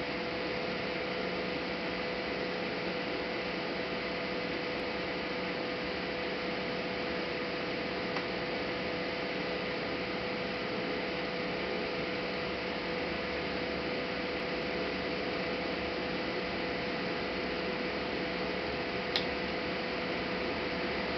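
Steady electrical hum over hiss, with one sharp click near the end.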